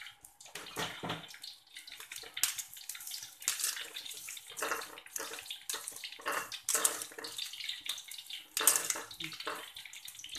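Perforated metal skimmer stirring wet small shrimp in a plastic colander, mixing in salt and MSG: irregular bursts of wet rustling and scraping.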